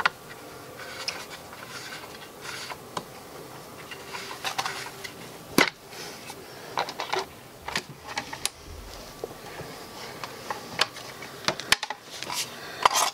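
Scattered clicks and knocks from handling a bolt-action rifle in a polymer stock, with hands working its parts, and a few sharper clicks near the end.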